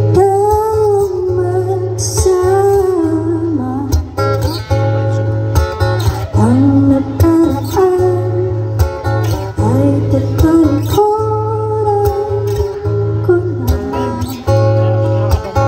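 A woman singing to acoustic guitar accompaniment, amplified live through a microphone and PA, with several long held notes in the melody.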